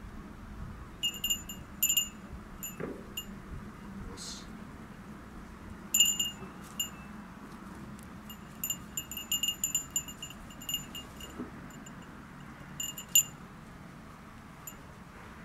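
Small metal bell jingling in short, irregular tinkles, ringing at the same few high pitches, in clusters with pauses between, over a steady low hiss.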